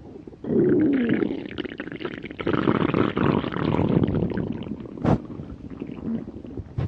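A person's stomach growling: a long, loud gurgling rumble with squeaky gliding tones that starts about half a second in and fades after about four seconds. A single sharp knock comes about five seconds in.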